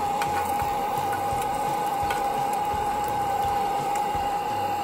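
Sausages, bacon and an egg sizzling on a hot steel spade blade, over the steady hiss of the gas blow lamps heating it from underneath. A steady thin tone runs under the sizzling.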